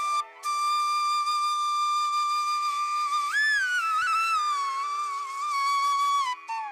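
Background music: a solo melody instrument holds one long note with pitch bends over a steady drone.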